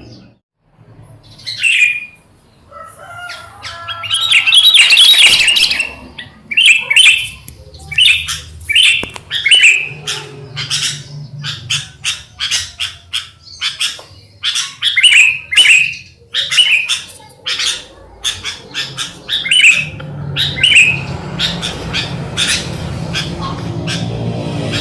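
Sooty-headed bulbuls (kutilang) calling: a busy run of short, sharp chirps, many falling in pitch, one after another, loudest a few seconds in. A low hum comes and goes underneath.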